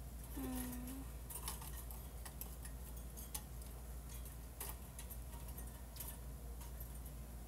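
Scattered light clicks and taps at an uneven pace, with a brief low hum of a voice about half a second in.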